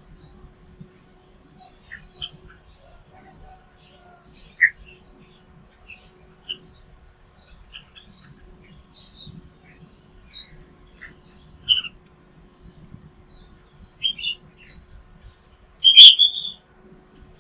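Small songbirds giving short, scattered chirps and tweets, with one louder, sharp call about a second before the end.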